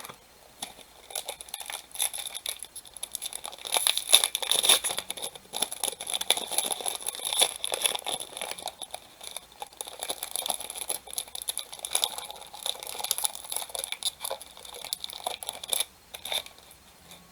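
A trading card pack wrapper being torn open and crinkled by hand, a long run of irregular crackling and rustling that stops near the end.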